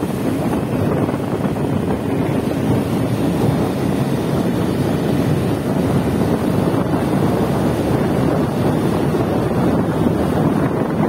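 Steady wind rush buffeting the microphone of a phone carried on a moving two-wheeler, with road and engine noise blended underneath.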